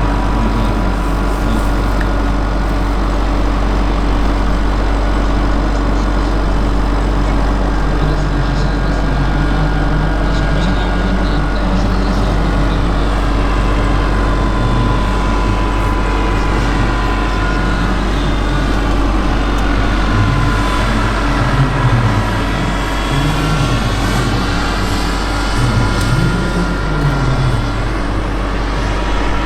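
Radio-controlled scale Bell 230 helicopter flying, a steady whine from its motor and rotors over a low rumble. The sound sweeps as it passes close, a little past the middle.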